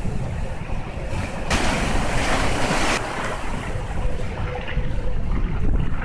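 Heavy typhoon-driven surf breaking on the shore, with one wave crashing and washing loudly from about one and a half seconds in to about three seconds. Strong wind buffets the phone's microphone throughout with a low rumble.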